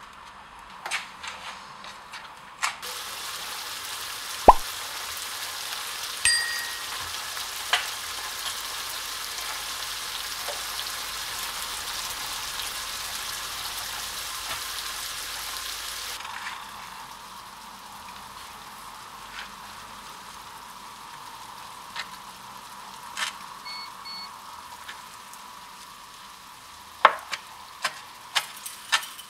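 Chicken curry sizzling steadily in a pan, with a loud knock of a wooden spoon early on. The sizzle drops away about halfway through, and near the end a chef's knife chops leafy herbs on a wooden board in a quick run of sharp cuts.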